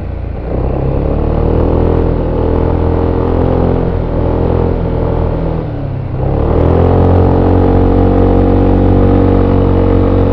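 VOGE SR4 MAX maxi-scooter's single-cylinder engine through its stock exhaust, heard on board while riding: it pulls up in revs, eases off briefly about six seconds in, then opens up again and holds a steady, louder note.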